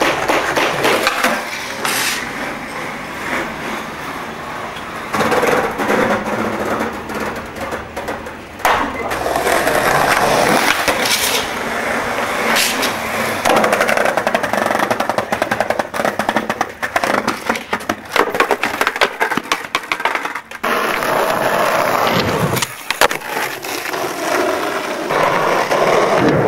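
Skateboard wheels rolling over paving and asphalt, with sharp clacks of the board popping and landing several times. The sound breaks off abruptly about two-thirds of the way through and resumes.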